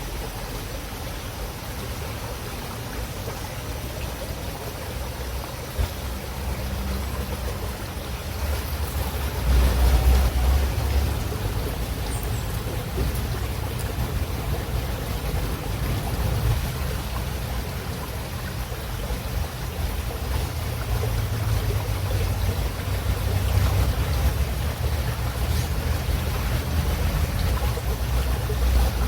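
River water running: a steady rush of flowing water, with a low rumble underneath that swells louder about ten seconds in and again past twenty seconds.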